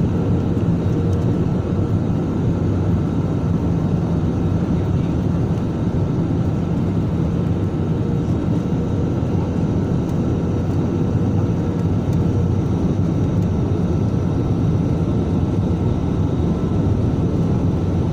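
Steady jet-airliner noise heard from inside the cabin as the plane comes in to land: a constant rumble of engines and rushing air with a faint steady whine, unchanging throughout.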